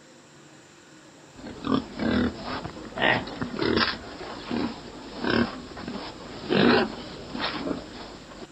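An animal making a run of short, rough calls, about eight of them, beginning about a second and a half in.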